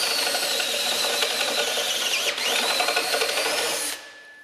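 Cordless drill running a hole cutter through a steel exhaust downpipe, enlarging the hole for a lambda sensor boss. It gives a steady high cutting whine that sags briefly a little over two seconds in as the cutter loads, then stops near the end.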